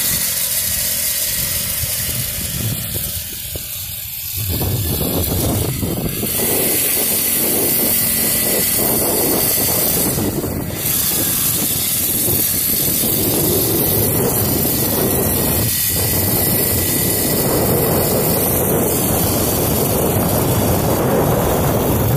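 Mini dirt bike's small motor running steadily as it rolls along, with wind noise on the microphone mixed in.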